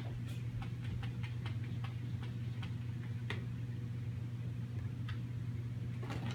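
A cat's paws tapping and clicking against a TV screen in irregular taps: several in the first second or so, one louder tap about three seconds in, and more near the end. A steady low hum runs underneath.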